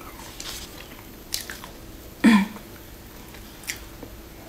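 Close-up eating sounds: a few short, crisp bites and chews of crumbly coated food torn apart by hand, the loudest a brief sound about halfway through.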